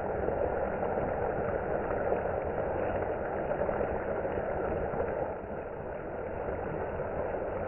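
A pan of chicken curry cooking on the stove: a steady, dull bubbling rumble with no distinct clicks or tones.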